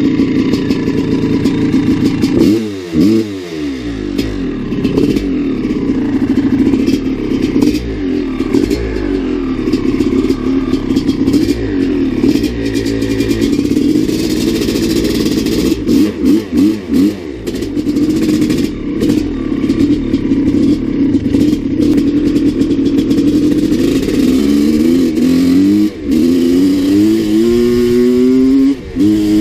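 Maico 660 dirt bike's single-cylinder two-stroke engine running under a rider on a test run after an air-filter rework, revving up and down. Near the end it climbs in pitch several times in a row as it accelerates.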